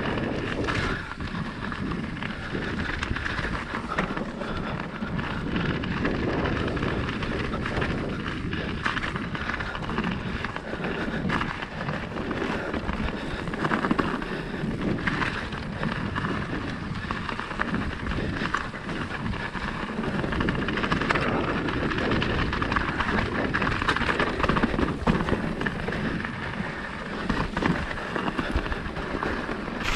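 Mountain bike riding fast down a rough forest trail, heard from a camera on the bike or rider: a steady rumble of knobbly tyres rolling over dirt and snow, with frequent knocks and rattles as the bike hits bumps.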